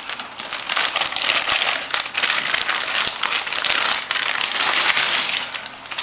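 Plastic anti-static bag crinkling and crackling continuously as a motherboard is slid out of it and the bag is pulled away.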